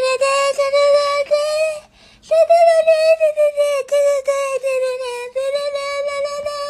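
A high voice holding one long wailing note, breaking off briefly about two seconds in and then held again with small regular dips.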